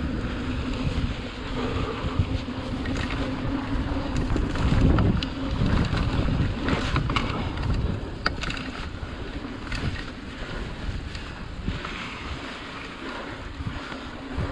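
Mountain bike rolling along a wet dirt trail: wind buffeting the camera's microphone over steady tyre noise, with scattered sharp clicks and rattles from the bike over bumps.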